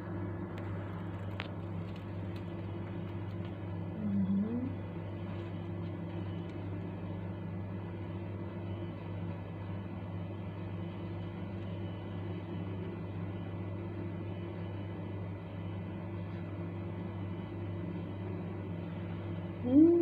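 A steady, even machine hum holds one pitch throughout. A short rising call cuts in about four seconds in, and a louder one starts at the very end.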